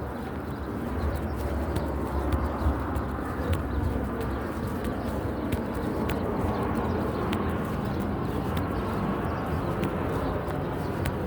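Footsteps and rustling noise on a walk outdoors, with scattered light clicks and a low rumble, while a bird calls.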